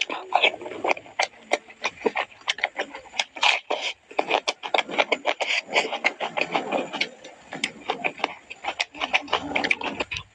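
Eating sounds from grilled chicken being chewed: a rapid, irregular run of short clicks and smacks.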